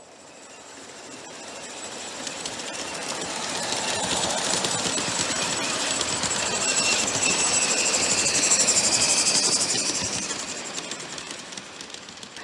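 A G-scale live-steam model locomotive, an Accucraft C-19, running past with a freight train: a fast, even clatter with hiss that grows louder, peaks about eight to nine seconds in, then fades as the cars roll by.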